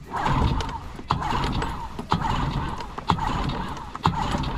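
Rubber primer bulb on an outboard motor's fuel line being squeezed by hand, a regular knock about once a second with rustling in between, pumping fuel up to the motor before a cold start.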